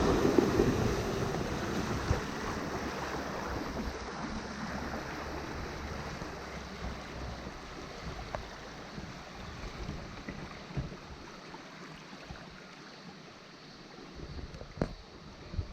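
Water splashing and churning as a 4x4 fords a river, loudest at the start and fading steadily, with a few short knocks near the end.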